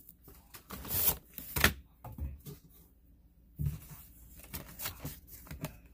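Product packaging being handled and worked open by hand: scattered rustles and knocks, loudest about a second and a half in, with a short lull in the middle.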